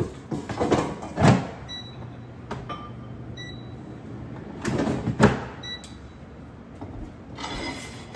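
Kitchen clatter of tongs and a dish being knocked about, then an air fryer's basket sliding back into the unit with a couple of sharp knocks. The air fryer's control panel gives several short, high beeps in between.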